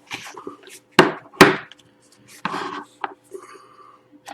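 Hands handling trading-card packaging: scattered rustling with two sharp knocks, about a second in and again half a second later, which are the loudest sounds.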